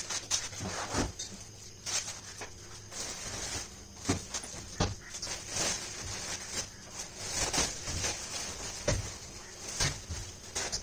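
Steel folding cot being moved and stood on end: irregular knocks and clanks from its metal frame, with plastic wrapping crinkling.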